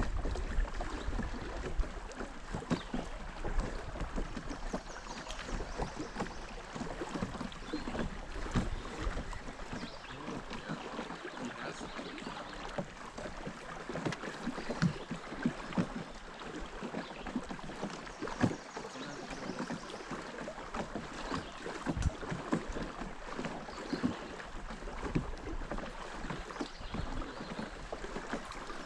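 River water gurgling and lapping against a fishing boat, with small irregular knocks and splashes.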